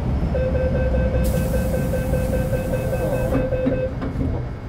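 Metro Cammell M-Train electric multiple unit running with a low rumble, under a steady high whine that starts just after the beginning and stops a little before the end, typical of its GEC GTO chopper traction control under power. A hiss rises over it for about two seconds in the middle.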